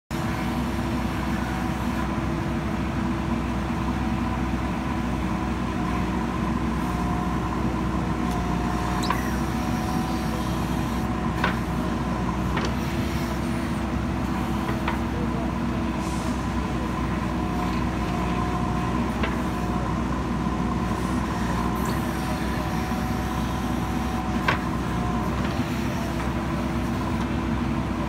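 JCB 3DX backhoe loader's diesel engine running steadily under load, with a steady hydraulic whine as the backhoe arm digs into soil and roots. A few sharp knocks stand out at scattered moments.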